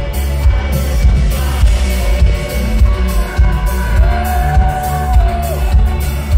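Live band playing an indie-pop song with heavy bass and a steady drum beat. A long held note about two-thirds of the way through bends downward as it ends.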